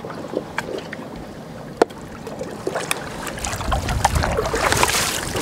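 Water splashing and churning at the boat's side as a hooked halibut is struck with a wooden-shafted harpoon pole, building about three and a half seconds in; a few sharp taps come before it.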